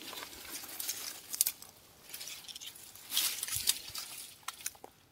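Rustling and crackling of dry leaves and brush, with scattered snaps and clicks. The sharpest click comes about a second and a half in, and there is a louder rustle a little past the middle.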